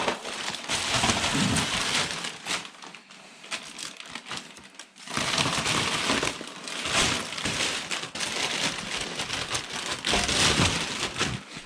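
Plastic carrier bags and rubbish rustling and crinkling as they are handled and rummaged through, in uneven spells, quieter for a couple of seconds in the middle.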